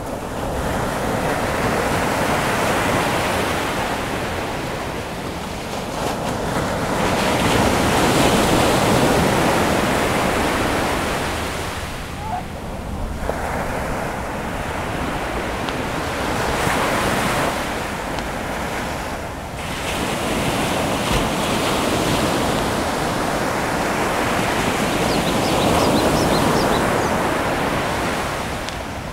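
Sea waves breaking on a shore, a steady rush that swells and falls back every several seconds.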